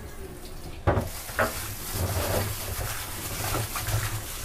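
Kitchen handling noise while chicken wings are washed in salted water: a sharp knock about a second in and another half a second later, then continuous rubbing and splashing.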